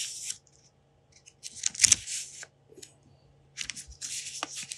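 Paper pages of a small facsimile notebook being turned by hand, rustling in short bouts, a few page turns with quieter gaps between them.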